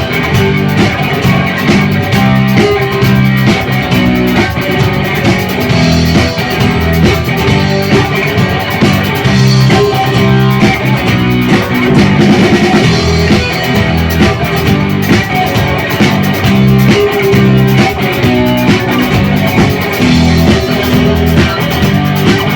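A rock band playing live without vocals: electric guitars and bass over a drum kit, in the song's instrumental outro.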